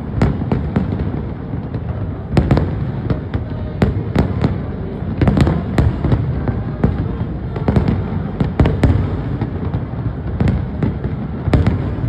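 Fireworks display: a rapid, irregular barrage of sharp bangs and crackles, several a second, over a continuous low rumble.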